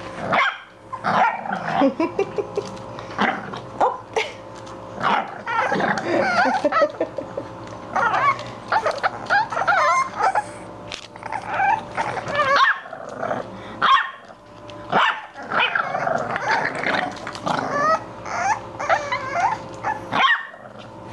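English bulldog puppies barking and yipping as they play, the calls coming almost without pause apart from a few brief gaps.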